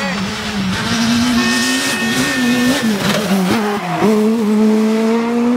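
Škoda Fabia S2000 rally car's 2.0-litre four-cylinder engine running hard at high revs on a stage. Its note holds steady, dips and climbs a few times in the middle, then settles into a long steady high note.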